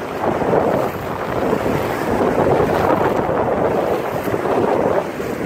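Wind buffeting the microphone over the steady wash of ocean surf, rising and falling in loudness.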